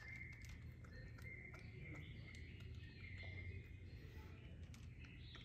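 Faint, low purring of a domestic cat, swelling and easing with its breathing.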